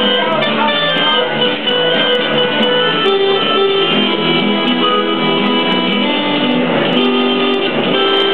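Electronic keyboard playing a tune of held notes over lower sustained notes, heard through a small amplifier.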